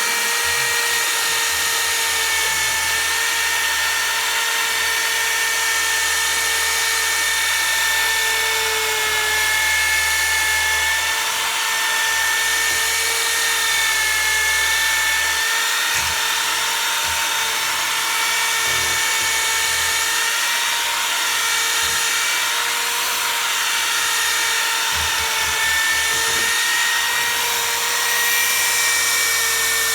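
Handheld electric polisher running steadily at a fairly high set speed with a high whine, its pitch wobbling slightly now and then as the pad is pressed. It is buffing headlight restorer into a plastic headlight lens under medium pressure.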